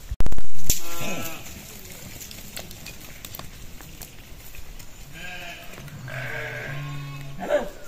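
Sheep bleating: a few separate bleats, one about a second in and several more in the last three seconds. A brief, very loud low thump on the microphone just after the start.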